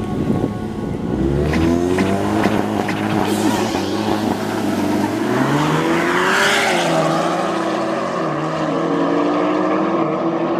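A car engine revving hard as the car accelerates away, its pitch climbing in several rising sweeps before settling to a steadier tone.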